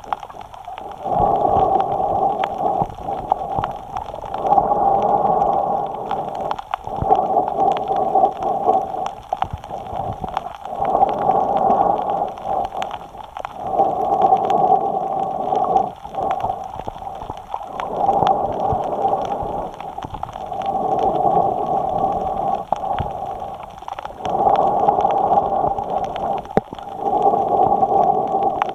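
A snorkeler breathing in and out through the snorkel tube, picked up by a camera mounted on the snorkel. The breaths come as steady, rhythmic swells of airy rushing, one every couple of seconds.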